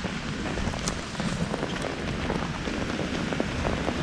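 Heavy rain falling on a wet street: a steady hiss of rain with scattered drop ticks and a low rumble underneath.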